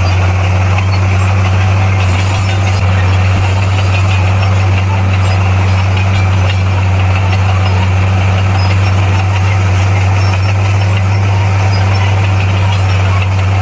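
Bulldozer's diesel engine running steadily with a strong, even low hum.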